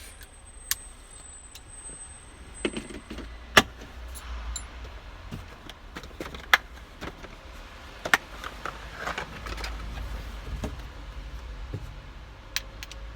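Metal hand tools clinking and rattling as sockets and a socket wrench are handled, with scattered sharp metallic clicks and knocks, the loudest a few seconds in.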